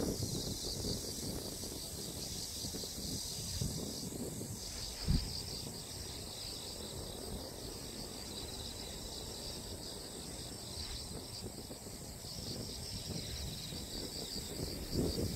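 A steady, high-pitched chorus of insects singing, over a low rumble of wind on the microphone. A single thump comes about five seconds in.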